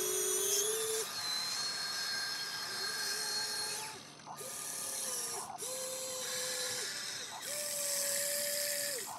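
Radio-controlled toy excavator's electric motors whining in about five short runs, each stopping abruptly and at a slightly different pitch, as the boom and bucket dig.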